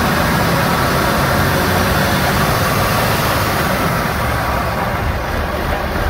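Cummins 5.9-litre inline-six turbodiesel running steadily, heard up close under the open hood.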